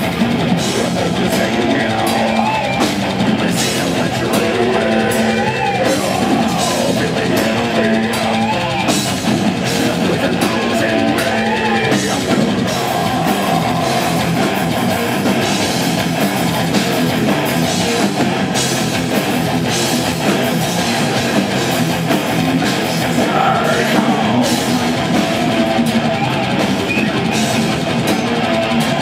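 Death metal band playing live, loud and unbroken: distorted electric guitars, bass guitar and a pounding drum kit, with singing.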